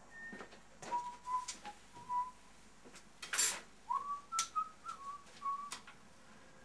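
A man whistling a few notes of a tune, with sharp knocks from wood being handled on a bandsaw table, and a short rasping scrape about three and a half seconds in.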